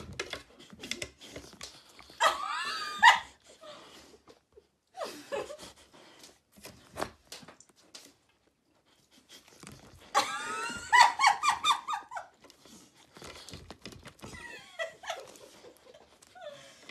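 A husky-type dog whining and vocalising. About two seconds in there is one drawn-out, wavering whine, and about ten seconds in a quick run of short, pitched yelps that rise and fall. Light clicks and knocks come between the cries.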